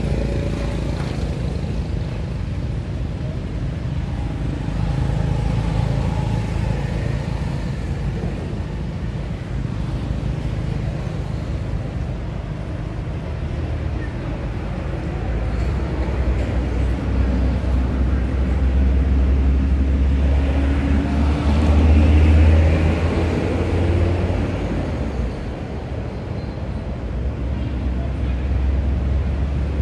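Steady low rumble of motor traffic. A vehicle's engine hum swells, rising and then falling in pitch, as it passes about two-thirds of the way through.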